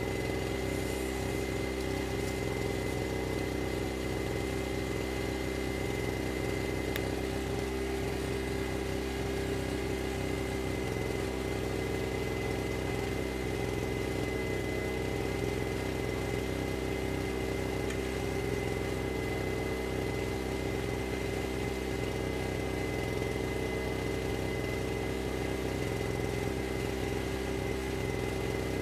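An engine running steadily at idle, a constant hum that does not change speed.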